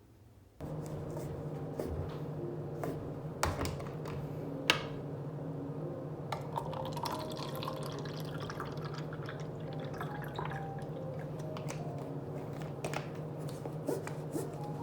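Water trickling and dripping over a steady low hum, with scattered clicks and ticks, starting suddenly about half a second in.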